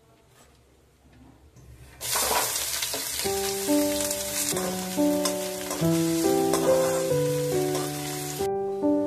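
Chopped onions dropped into hot oil in a wok, sizzling loudly as they fry and are stirred with a slotted spatula; the sizzle starts suddenly about two seconds in and stops abruptly near the end. Soft piano music plays over it from about three seconds in.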